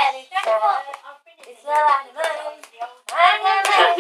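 Hand claps along with a high voice singing or chanting in short phrases. The voice is loudest near the end.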